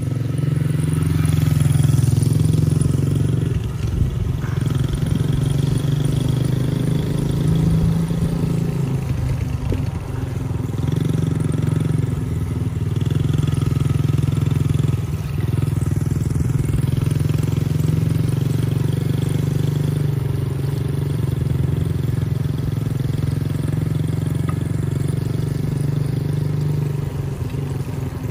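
Yamaha TT-R110 youth dirt bike's 110 cc four-stroke single-cylinder engine running as the bike is ridden along, its note mostly steady and easing off briefly a few times.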